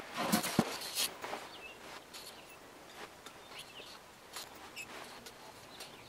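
Wire grid panels of a magic-panel storage cube being handled and joined with hog rings and hog ring pliers: a cluster of knocks and rustling in the first second, then scattered light clicks.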